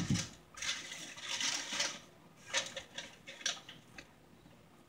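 Tissue paper in a shoebox rustling and crinkling as hands move it aside, after a knock at the very start. Then a few light taps and knocks as the sneaker is lifted out and handled.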